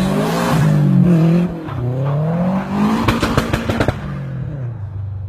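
Car engine revving up and down several times, with a burst of crackling pops about three seconds in, then settling to a steady idle near the end.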